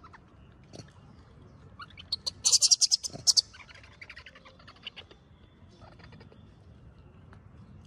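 Baby rhesus macaque giving a burst of rapid, shrill squeaks for about a second near the middle, followed by a few softer squeaks.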